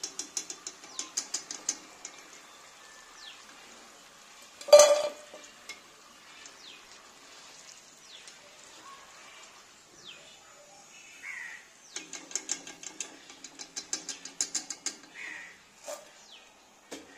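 Potato fries deep-frying in hot oil for their second fry, with two bursts of rapid crackling and ticking, one near the start and one about twelve seconds in, and a single loud knock about five seconds in.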